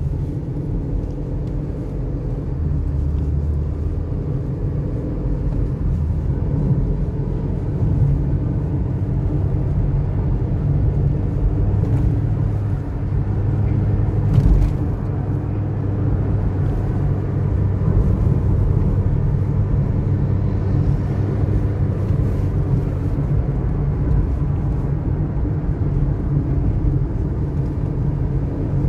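Honda City's engine and tyre rumble heard from inside the cabin while driving, a steady low drone that swells and eases a little with the throttle. A few brief clicks stand out partway through.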